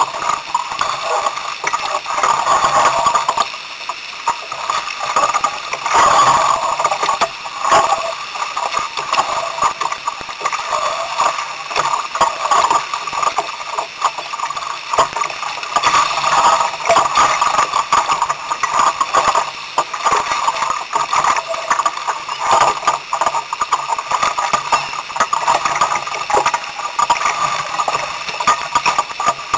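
Water splashing and slapping against the hull of a 1962 Sunfish sailboat under way: a continuous uneven wash broken by many small slaps.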